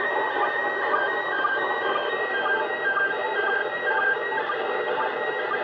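Weak slow-scan TV signal from the International Space Station received on a 2-metre FM radio at 145.800 MHz, heard through the radio's speaker. A steady wash of hiss carries faint warbling data tones and a short beep that repeats about every two-thirds of a second.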